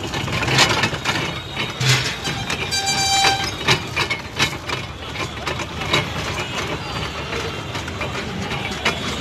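Hand-cranked sugarcane juice crusher at work: its open gears and ribbed steel rollers clack irregularly as cane stalks are fed through and crushed. A horn sounds briefly about three seconds in, over a steady background din.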